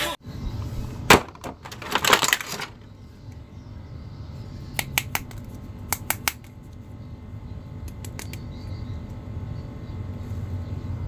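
Small plastic action figures being handled and pulled from a clear plastic bag: a sharp click about a second in, a brief crinkle of bag plastic around two seconds in, then scattered light plastic clicks, over a faint low hum.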